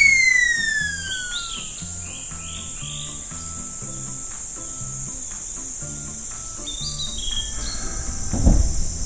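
Steady high-pitched insect buzzing, a summer sound effect, under light cartoon music with soft repeating bass notes and short chirping effects. A falling glide tone trails off over the first two seconds, and a low thud comes near the end.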